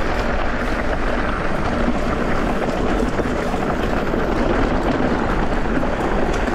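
Mountain bike riding over a dry, stony dirt trail: tyres crunching on loose stones and the bike rattling over the bumps, with steady wind rush on the camera's microphone.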